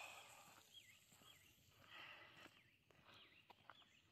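Faint bird calls: short whistled notes that dip and rise, repeated every half second or so over quiet countryside, with a few soft ticks.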